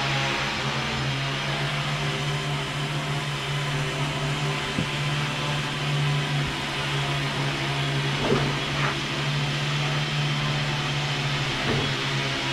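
The four Parkzone 480 960kv brushless motors and propellers of a homemade H-frame quadcopter, running steadily in flight with an even whirring hum.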